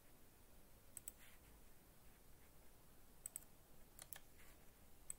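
Faint computer mouse clicks: three or four quick pairs of ticks with near silence between.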